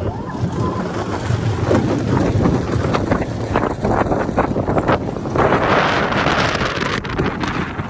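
Wind rushing and buffeting over the microphone of a rider on the moving Slinky Dog Dash steel roller coaster, with the train rumbling along the track underneath.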